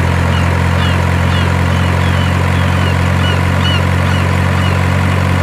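Steady heavy-vehicle engine idle, an even low hum that does not change, for a toy RC excavator and dump truck. A row of short high chirps, about two to three a second, runs through the middle.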